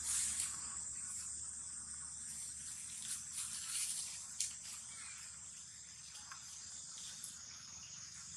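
A steady, high-pitched insect hiss, with a few short rustles and clicks of dry leaf litter as monkeys move on the ground, mostly about three to four and a half seconds in.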